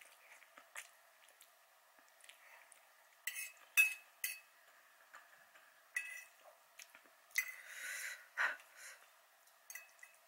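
Eating utensils clinking against a noodle bowl: a scattering of short, sharp clinks, with a soft rushing sound about eight seconds in.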